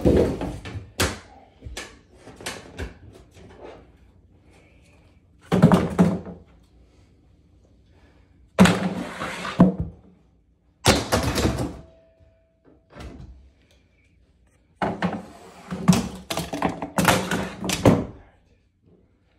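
Sledgehammer blows smashing a wooden desk's drawers and frame to pieces: heavy thuds and knocks in clusters of several strikes, with short pauses between the clusters.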